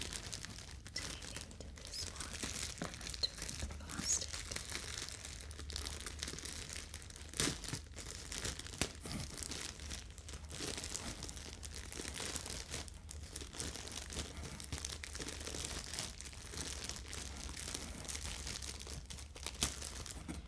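Thin plastic polybag being picked at and pulled open by fingers: continuous crinkling with some tearing, and a few sharper, louder crackles.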